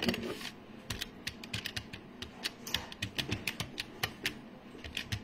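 Typing on a keyboard: quick, irregular key clicks, several a second.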